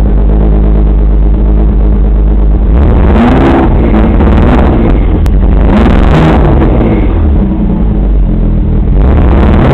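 Car V-engine idling roughly, its speed swelling up and dropping back three times, about every three seconds. The passenger-side cylinder bank is running lean.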